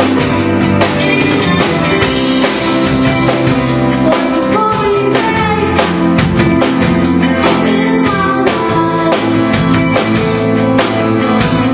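Live band playing, recorded from the room: drum kit with a steady beat, guitars and bass, and a woman singing over them.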